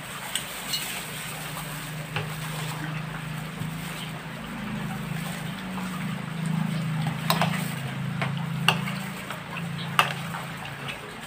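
Two spoons stirring and folding buko salad of gelatin cubes and shredded young coconut in a stainless steel bowl, with a few sharp clinks of spoon on metal in the second half. A low hum runs underneath.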